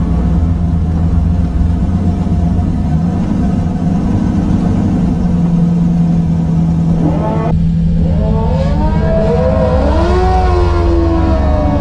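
LS-swapped Firebird's V8 engine running at a slow roll, steady with a slight rise in revs about three seconds in. About seven and a half seconds in, music with gliding, bending tones starts over the engine sound.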